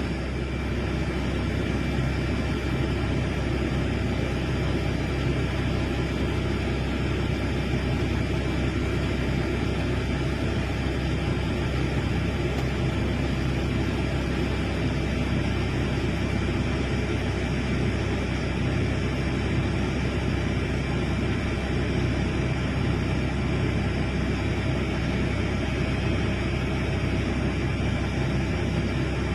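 Large excavator's diesel engine running steadily, a low, even noise with no pauses or changes.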